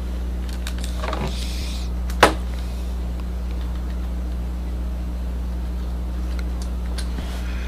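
Steady low hum with faint rustling and a few light clicks, and one sharp knock about two seconds in: handling noises while a passage is looked up in the Bible.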